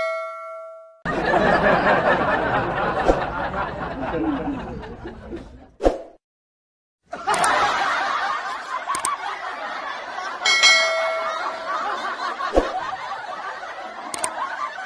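Stock sound effects: a bell ding rings out and fades, then a crowd laughs for about five seconds. After a short break the crowd laughter comes back, with another bell ding about ten and a half seconds in.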